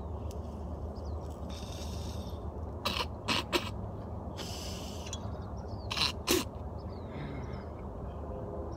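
Glass bong being hit: short bursts of hiss and bubbling as smoke is drawn through the water, with sharp clicks in two quick clusters, around three seconds in and again around six.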